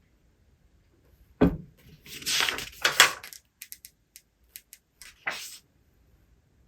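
Objects handled at a desk: a sudden thump, then two loud rustling swishes, a quick run of light clicks and one more short swish.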